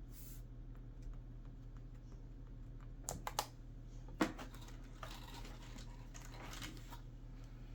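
Small hard clicks and taps of tiny laptop screws and a precision screwdriver on a laptop's bottom panel: a cluster of clicks about three seconds in, one sharp click a second later, then a run of lighter rattling taps.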